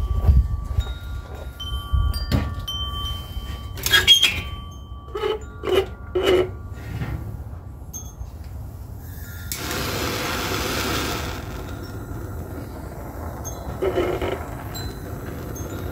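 Wind chimes ringing in several clear high tones, with knocks and clatters of handling, short pitched squeaks about five to six seconds in, and a rushing hiss lasting under two seconds about ten seconds in.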